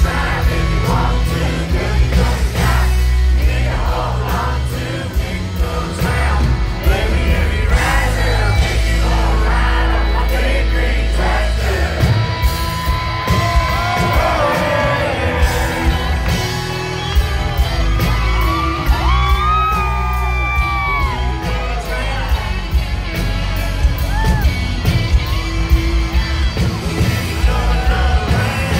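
Live country band playing loudly through a concert PA, with drums keeping a steady beat, acoustic and electric guitars, and singing. The recording is made from within the audience, so crowd yells and whoops mix in.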